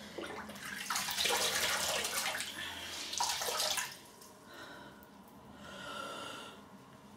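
Water running from a tap and splashing at a bathroom basin as a face is wetted with the hands. It is loudest for the first few seconds, then carries on more faintly.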